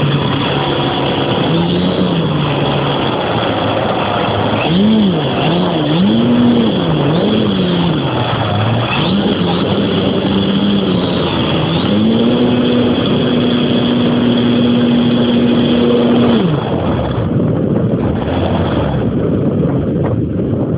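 Electric motor and propeller of a Tiger Stick RC model plane, heard from a camera on the plane's nose. The whine swings up and down in pitch with the throttle, holds steady for a few seconds, then cuts out near the end, over constant wind rush on the microphone.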